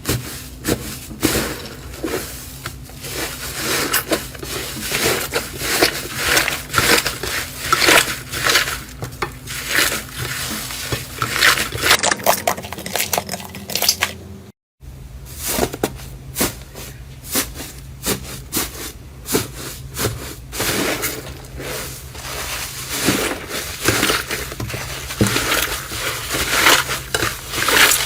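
Dense crunching and crackling of a crunchy ASMR material being crushed, with many sharp clicks a second over a steady low hum. It drops out for a split second about halfway, then the crunching carries on.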